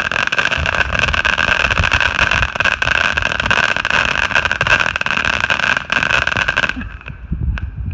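Firework burning with a loud, continuous hissing spray peppered with crackles, which cuts off suddenly about seven seconds in.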